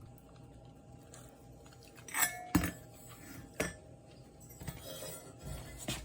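A few light metal clinks and knocks, one ringing briefly about two seconds in, as small metal pieces are handled and set down.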